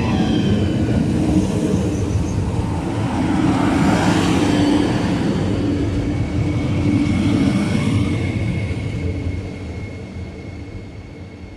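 Régio2N double-deck electric train running past close alongside the platform, its steady rumble fading from about eight seconds in as the last car clears. A thin high whine holds on as the rest dies away.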